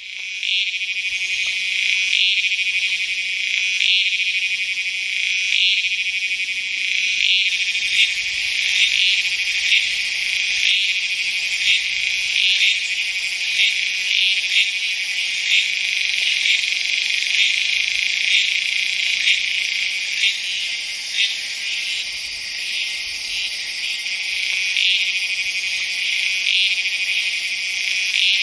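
Cicadas, Tacua speciosa, in a jungle insect chorus: a steady high-pitched buzz with louder pulsed calls over it. The calls come about every two seconds at first and faster after about seven seconds.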